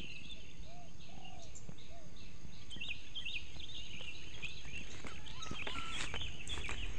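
Wild birds chirping in quick, repeated high notes, busiest from a couple of seconds in, with three short, lower calls in the first two seconds. A thin steady high tone and a low background rush run beneath.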